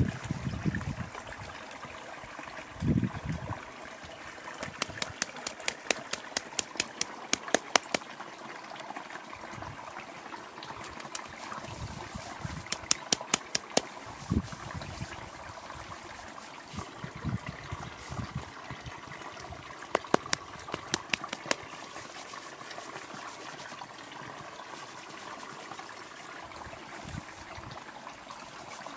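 Fingers massaging oil into wet hair, making runs of quick, crackly squelching clicks, several a second, over a steady background hiss.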